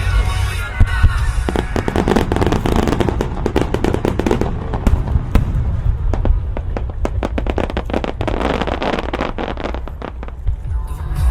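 Aerial fireworks bursting and crackling in a dense, rapid string of sharp reports, with the show's synchronised music playing underneath.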